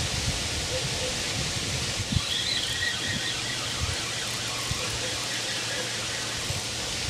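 Steady outdoor hiss of open-air ambience with wind on the microphone. A few faint high chirps come about two to three seconds in.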